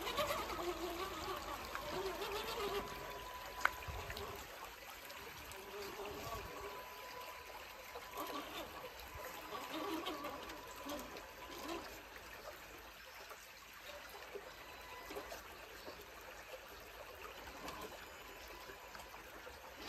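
Shallow creek water trickling and gurgling over stones. A faint steady high whine runs under it, and there is a single sharp click about three and a half seconds in.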